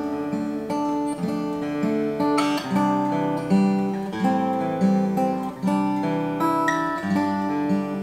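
Cort Gold A6K acoustic guitar played fingerstyle, with picked chords and a melody line whose notes ring on over one another.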